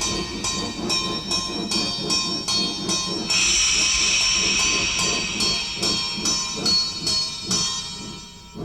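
Train sound effect: a steady chugging beat, about three to four strokes a second, with high, bell-like ringing tones over it, fading out near the end.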